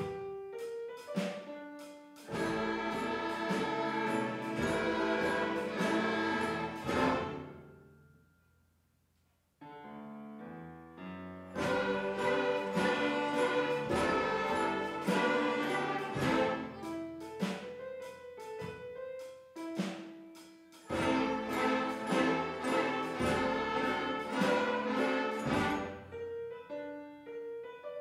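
A children's school orchestra of violins, cello, clarinets, trumpets and drums playing a swing-style piece. Loud full-ensemble passages alternate with quieter ones, and the music dies away almost to nothing about eight seconds in before starting again.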